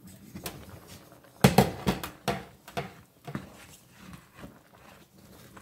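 A glass pot lid is lifted off a pan, then a wooden spoon stirs a thick, milky macaroni and ground-beef mixture. The spoon knocks and scrapes against the pan about a dozen times, loudest about a second and a half in.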